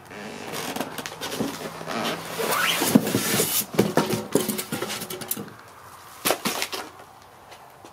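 Cardboard box and styrofoam packing scraping and rustling as a heavy electric log splitter is hauled out of its box, followed by two sharp knocks about six seconds in.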